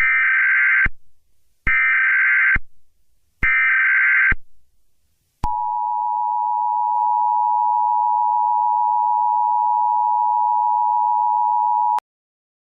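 Emergency Alert System SAME header: three short, identical bursts of shrill digital data tones, a little over a second apart. They are followed by the EAS attention signal, a steady two-tone alert tone held for about six and a half seconds, which cuts off abruptly.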